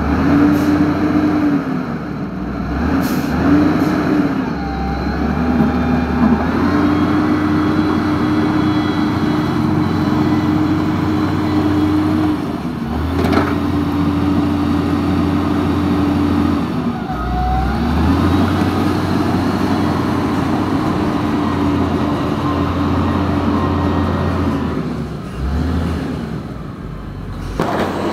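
Electric drive motors and gearbox of a radio-controlled toy wheel loader whining as it drives and pushes dirt, starting and stopping in spurts of a few seconds.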